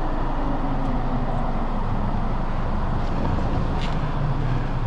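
Steady low rumble of road traffic and an idling car at an intersection, with a couple of faint ticks.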